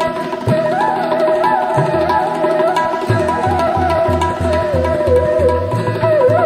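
Tabla playing in a steady rhythm, with deep bass strokes on the bayan, two of them gliding upward in pitch early on. Above the drums runs a melody with sliding, bending notes.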